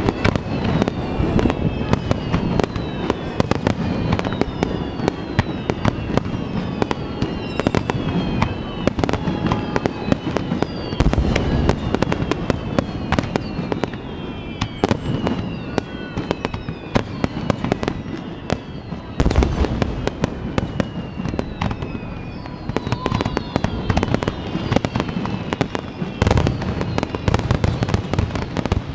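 Fireworks display: a dense run of shell bursts and crackling, with many falling whistles overlapping throughout. Heavier booms come about eleven, nineteen and twenty-six seconds in.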